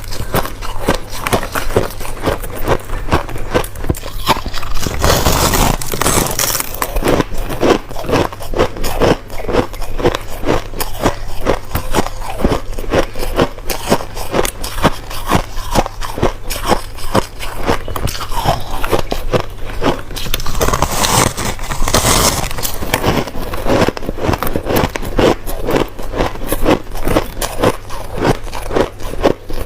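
Close-miked crunching of crushed ice being bitten and chewed: a rapid, continuous run of crisp crunches, with louder stretches of crunching about five seconds in and again about twenty-one seconds in.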